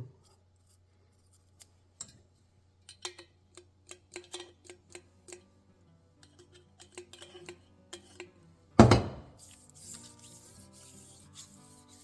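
A series of small clicks and taps as a freshly ringed piston is handled and oiled, then one loud knock about nine seconds in. Background music comes in right after the knock.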